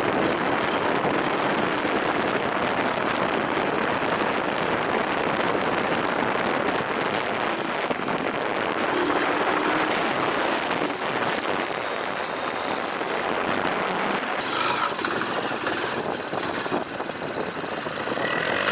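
Dirt bike engine running steadily, heard as a continuous dense rush of noise without clear pitch changes.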